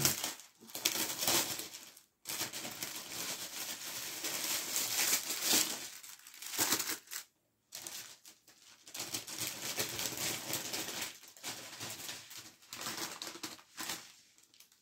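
Clear plastic wrapping crinkling and rustling as a packaged tote bag is handled, in irregular bouts with two brief silent gaps, about two seconds in and about seven seconds in.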